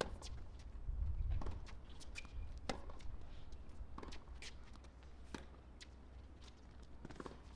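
Tennis rally on a hard court: sharp racket strikes and ball bounces, a hit about every second and a half, over a low hum, with a short low rumble about a second in.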